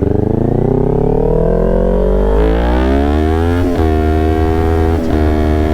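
Kawasaki Ninja 400 parallel-twin engine accelerating, the revs climbing steadily for about three and a half seconds, then a short break at an upshift, after which it holds a steady speed with two brief dips.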